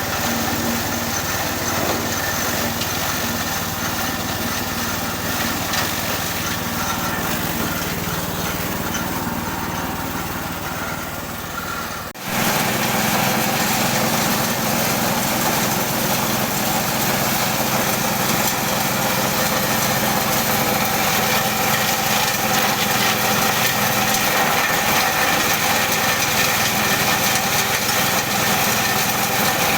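Multi-function forage chopper and hammer mill running steadily under power, a loud small-engine-like drone. About twelve seconds in the sound cuts out for an instant and resumes with a stronger, slightly different tone.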